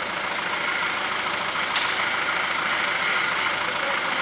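A boxy off-road 4x4's engine running steadily at low revs, with no change in pitch, as the vehicle crawls through a muddy gully.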